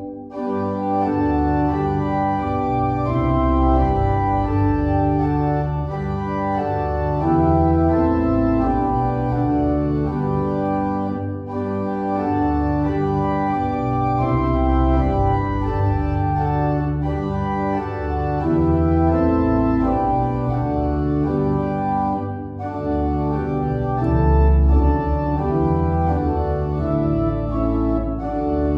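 Church organ playing a slow hymn in full, sustained chords that change every second or so.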